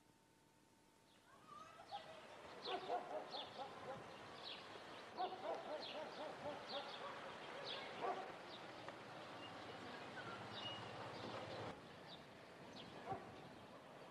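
Small birds chirping in short, repeated calls over outdoor background hiss, after a near-silent start with a faint steady hum.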